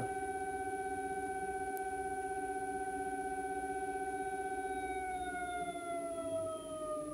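Nissan Leaf permanent-magnet AC traction motor spinning unloaded on a 48-volt AC controller, giving a steady electric whine. About five seconds in, the pitch starts to fall gradually as the motor slows down.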